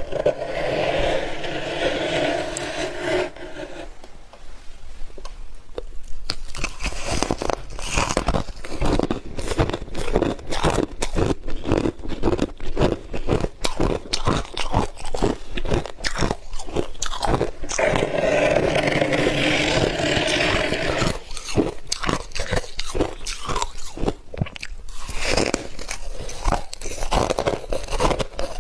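Freezer frost being bitten and chewed close to the microphone: squeaky, compacting bites near the start and again about two-thirds of the way through, with rapid irregular crunching chews between and after.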